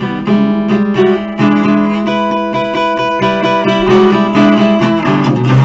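1970 Guild Artist Award archtop jazz guitar playing a run of chords between sung lines, the notes changing every half-second or so with some chords left to ring.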